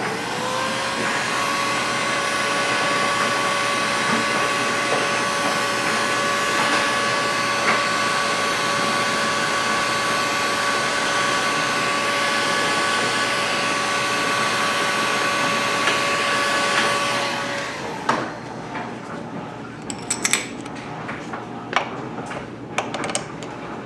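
Hot-air gun blowing steadily with a constant whine as it heats the model engine's crankcase, so the bearing bore expands enough for the rear bearing to drop in. It comes up to speed at the start and shuts off about three quarters of the way through, followed by a few light clicks and knocks as the part is handled.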